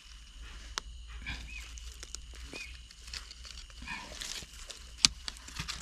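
Short chirping animal calls repeating over a faint steady high tone, with a few sharp clicks, the loudest about five seconds in.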